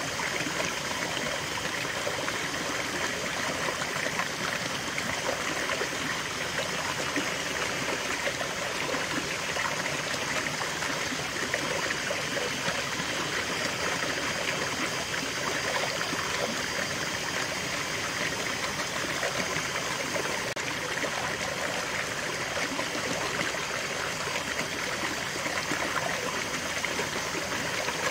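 Small rocky stream running steadily, water spilling over a low ledge between boulders into a shallow pool with a constant splashing trickle.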